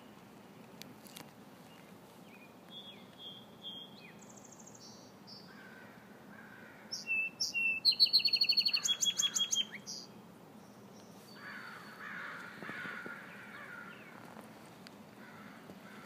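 A small songbird singing: a few soft, high notes, then about seven seconds in one loud song of clear notes that runs into a fast trill and lasts close to three seconds.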